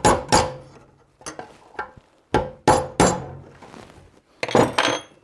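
Hammer blows on a mini split heat pump's fan motor shaft, striking metal to drive off a fan blade seized on the shaft. The blows come in small groups of two or three sharp strikes, each with a short metallic ring.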